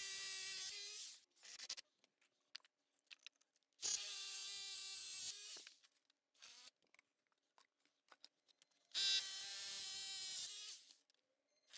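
Power drill running in three bursts of one and a half to two seconds each, with faint clicks between, as Tapcon concrete screws go in to anchor wooden form boards to concrete steps.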